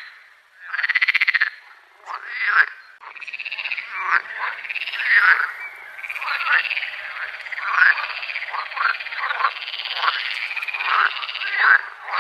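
A chorus of frogs calling over one another: rapid pulsed, trilling calls that rise and fall in pitch, nearly unbroken, with short lulls in the first couple of seconds.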